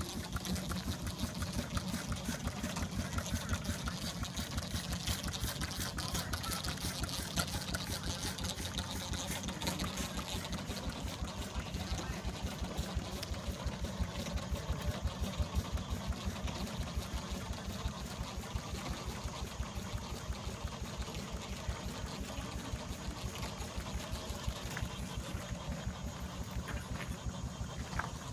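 Antique Little Giant steam engine running steadily, with a fast, even beat.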